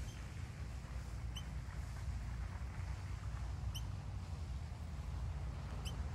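Wind rumbling on the microphone, with a short high squeaky chirp from a bird three times, about every two seconds.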